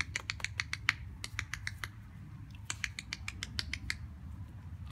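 A person making rapid clicking sounds to call a puppy, about seven clicks a second in three quick runs that stop about four seconds in, over a low steady hum.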